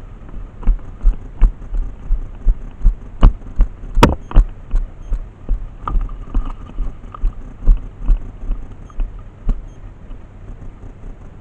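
Rhythmic low thumps, about three a second, typical of a player's footsteps jolting a body-worn camera while walking briskly. There are two sharper cracks about three and four seconds in.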